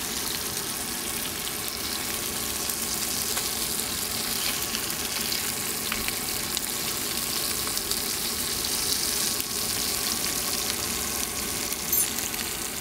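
Fish fillets sizzling steadily in a small pan on a camping gas stove, with a fork turning them. A brief clink near the end.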